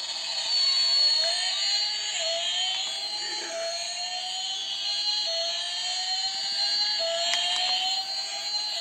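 Battery toy race car's electronic engine sound effect playing from its small speaker: a rising revving whine that climbs, drops back and climbs again about every one and a half to two seconds, over a steady high electronic tone.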